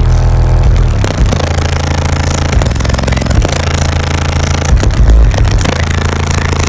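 Extremely loud bass music played through four Crossfire XSV2 18-inch subwoofers, heard inside the truck's cab. The deep bass notes shift every second or so and overload the microphone into a distorted rumble.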